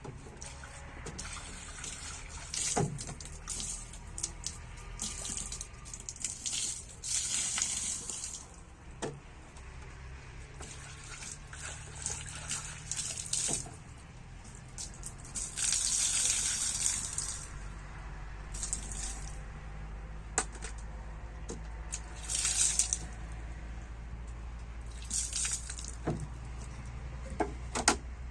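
Water running or being poured in short spurts, several times over, with scattered knocks and clinks in between.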